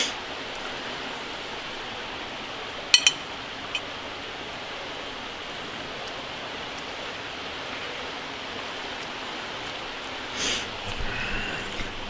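Steady rush of a river flowing, with a couple of sharp clicks about three seconds in.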